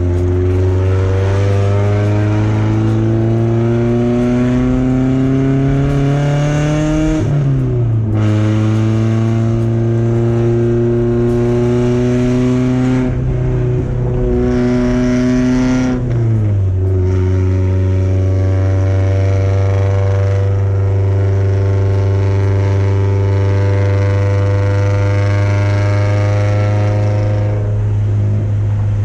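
Porsche 944's four-cylinder engine through a full straight-through exhaust with header and no catalytic converter or mufflers, accelerating through the gears. The revs climb, fall at an upshift about seven seconds in, climb again, fall at a second upshift about sixteen seconds in, then hold steady at cruise.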